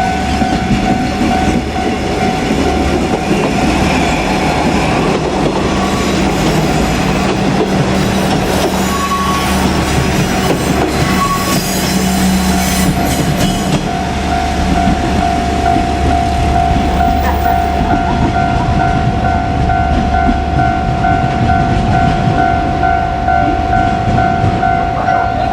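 Level-crossing warning bell ringing steadily over the low, steady drone of KiHa 47 diesel railcars' engines, with the bell fading for a few seconds in the middle before returning.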